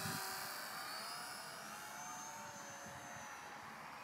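Electric motor and propeller of a mini RC Messerschmitt warbird flying past: a high buzzing whine, loudest at the start, that drops slightly in pitch and fades as the plane flies away. Wind buffets the microphone underneath.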